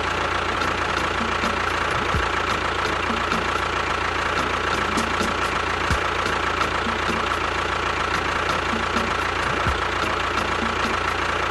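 A small motor running steadily at constant speed, with a steady high whine over a rough mechanical hum.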